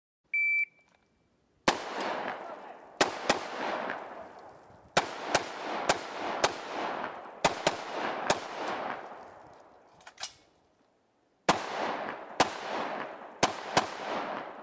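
An electronic shot timer beeps once to give the start signal, then a UR-15 AR-15-pattern semi-automatic rifle with a three-chamber compensator fires a string of shots in quick pairs and groups. Each shot has a long echoing tail, and there is a short pause before a final group near the end.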